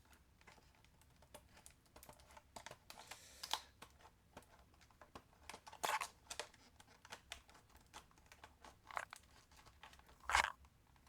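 Rigid plastic clamshell packaging being handled and cut open around its edges: faint, scattered crinkles, crackles and clicks, a few louder ones about a third of the way in, midway and near the end.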